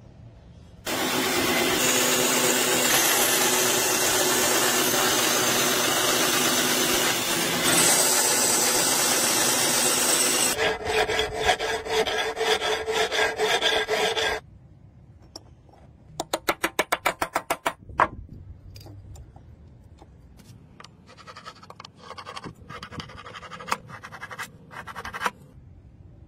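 Brass being cut and filed by hand. About ten seconds of loud, continuous cutting noise are followed by rhythmic rasping file strokes, then a quick run of rapid strokes, then lighter scrapes and taps near the end.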